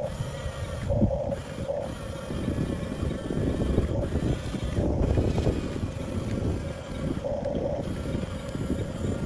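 A 1/14-scale Huina RC bulldozer's electric motors whining, swelling in short spurts, over a steady low rumbling noise.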